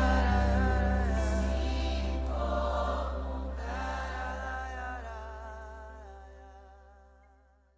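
Christian worship music: voices singing with vibrato over a held low bass note, fading out steadily to nothing near the end.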